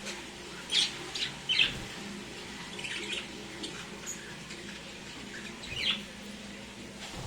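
Lovebirds giving short, high chirps, in a quick cluster about a second in and singly about three and six seconds in.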